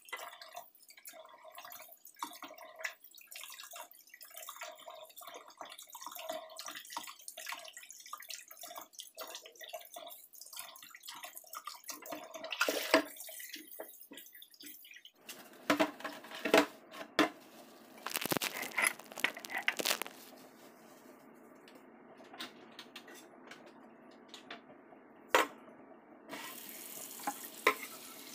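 Kitchen tap running into a stainless steel sink while leafy greens are rinsed and rubbed by hand, a quick run of splashes and rustles. About halfway the water settles into a steady flow, broken by several sharp knocks and clatters against the sink.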